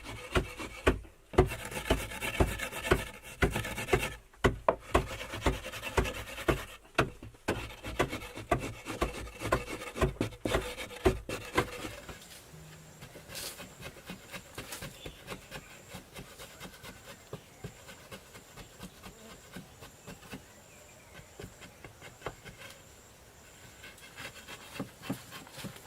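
Quick, rhythmic rubbing or scraping strokes by hand, about three a second with two short pauses. They stop about twelve seconds in and give way to fainter, sparser scrapes and ticks.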